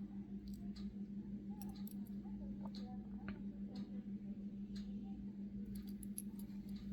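Faint, scattered light clicks and taps from small diecast metal toy cars being handled, over a steady low hum.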